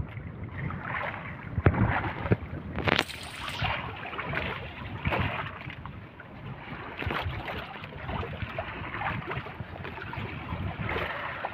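Water sloshing against a small boat, with wind on the microphone and scattered sharp knocks; the loudest knock comes about one and a half seconds in, and a short hiss about three seconds in.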